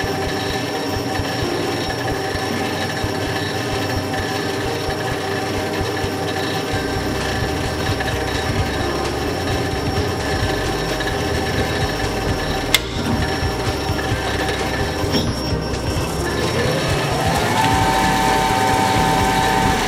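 Instron tensile testing machine running with a steady whine as it pulls a plastic camera holder apart. About two-thirds of the way through comes a single sharp crack as the plastic part snaps at about 102 pounds of pull. Near the end the machine's whine rises in pitch and holds.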